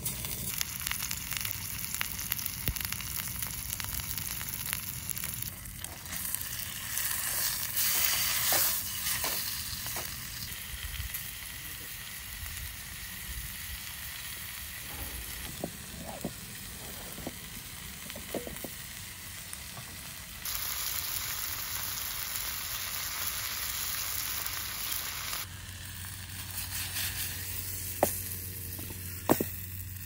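Saikyo-yaki (miso-marinated fish) sizzling as it grills on a campfire grill, the hiss jumping in level at several cuts between shots. Two sharp clicks near the end.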